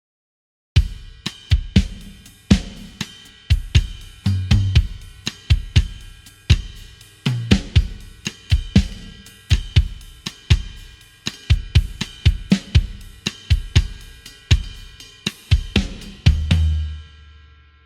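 Sampled hard rock drum kit from the EZdrummer 3 Hard Rock EZX library playing a groove: kick, snare, hi-hat and crashing cymbals, with lower tom hits now and then. It starts just under a second in and stops briefly near the end.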